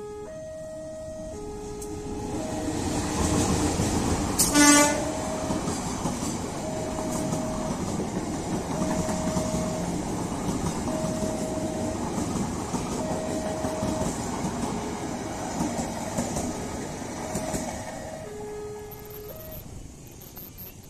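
Level-crossing warning alarm repeating a two-note electronic tone as a diesel-hauled passenger train passes. There is one short locomotive horn blast about four and a half seconds in, then the steady rumble and wheel clatter of the coaches rolling over the rails, easing off near the end.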